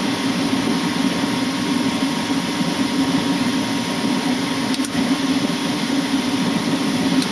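Gas furnace running with its burner lit: a steady rush of flame and draft fan over a low hum. The burner is staying lit, not cutting out after a few seconds as it had been.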